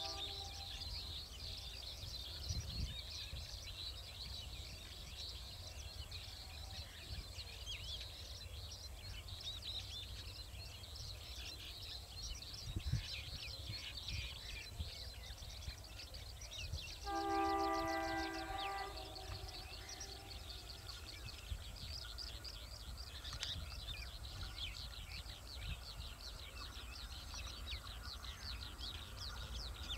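Birds chirping over a faint low rumble, with the horn of an approaching ALCO diesel locomotive sounding once for about two seconds a little past the middle, a chord of several steady notes.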